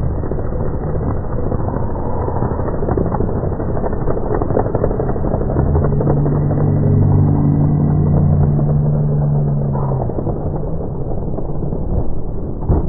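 Steady rumbling vehicle noise, dull and muffled, with a steady engine drone rising out of it from about five to ten seconds in.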